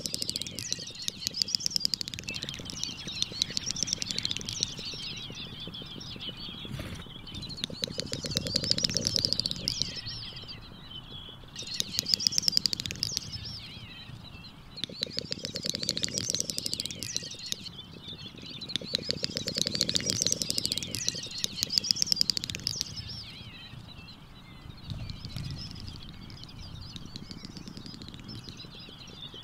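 Great snipe displaying at its lek: repeated bouts of song, each a rapid stutter of clicks running into a bubbling, twittering warble. The bouts last a couple of seconds and come every three to four seconds, weaker near the end.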